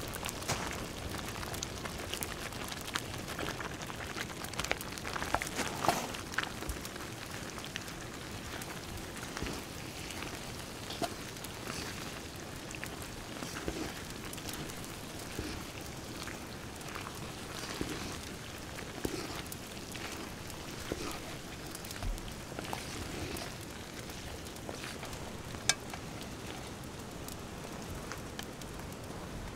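Wood fire crackling with a steady hiss and scattered small pops under a cast-iron Dutch oven of simmering pasta sauce. Louder wet sloshing comes in the first several seconds as pasta is tipped into the pot.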